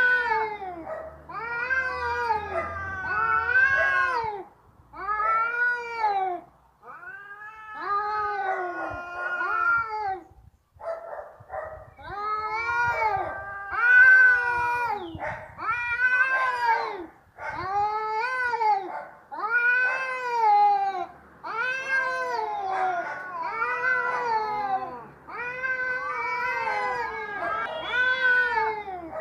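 Domestic cat yowling, an angry caterwaul of a cat ready to fight. It gives a long run of drawn-out calls that rise and fall in pitch, one after another with short gaps. The loudest call comes about halfway through.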